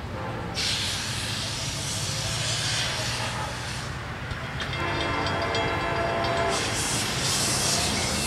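Horn of an approaching Florida East Coast freight train's diesel locomotive, one blast of several tones held for about two seconds near the middle, over a steady low diesel rumble. A loud hiss comes and goes around it.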